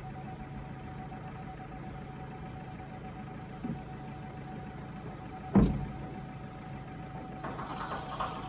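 Engine running steadily with a constant whine during the loading of a car onto a car transporter. There is a light knock, then a single heavy thump a little past halfway, and a spell of rattling near the end.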